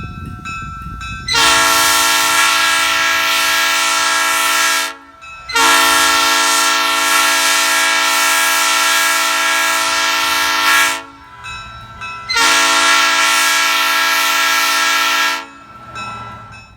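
Nathan Airchime old-cast P3 three-chime train horn blown on 120 psi air, with a mellow tone. Three blasts, the middle one the longest at about five seconds, each a steady chord that starts and stops sharply.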